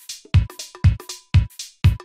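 Background music with a steady electronic beat, about two strong beats a second.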